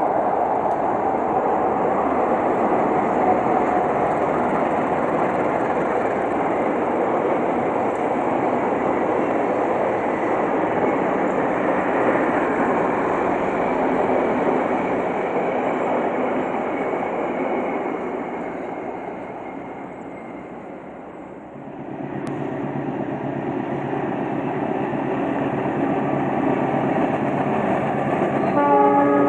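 A long passenger train's coaches rolling past on the rails, a steady rushing of wheels on track that fades away about twenty seconds in. A CC 206 diesel-electric locomotive hauling tank wagons then takes over with its engine running, and its horn starts to sound right at the end.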